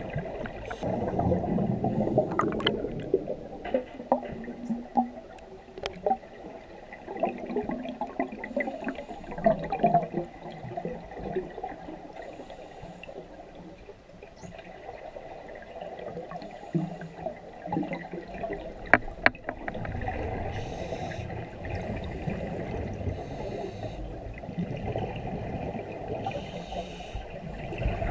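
Scuba regulator breathing underwater: bursts of gurgling exhaust bubbles alternating with short hissing inhalations, repeated breath after breath, with scattered small clicks.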